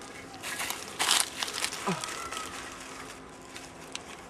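Fabric rustling and crinkling as a red cloth strip is handled and tied around a pine trunk, with one short loud rustle about a second in and lighter crinkles after.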